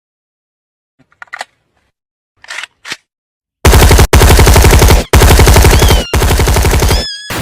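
Machine-gun-like rapid-fire sound effect, very loud: dense, evenly repeating shots in three long bursts with short breaks, starting about three and a half seconds in after a few faint short sounds.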